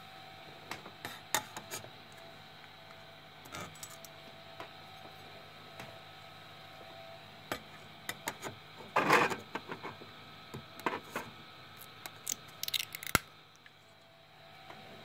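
Thin metal scraper scratching and clicking against a 3D printer's bed as a freshly finished printed cube is pried off, with the loudest scrape about nine seconds in and a sharp click near the end. The printer's fans hum steadily underneath.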